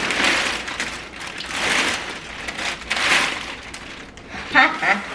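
Foil insulated shipping liner crinkling and rustling as it is pulled open and lifted, in repeated bursts about a second and a half apart.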